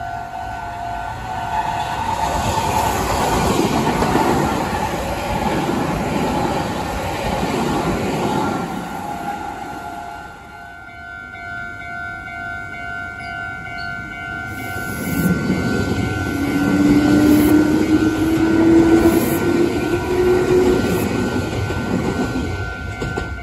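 Meitetsu electric train of three coupled sets running past, wheels clattering over the rail joints. In the second half a motor whine rises in pitch.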